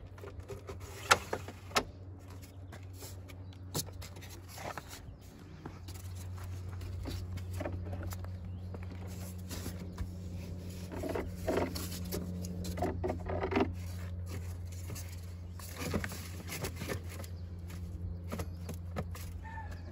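Nudura ICF foam forms being handled and fitted by hand: scattered sharp clicks and knocks and a run of scraping, over a steady low hum that grows louder about six seconds in.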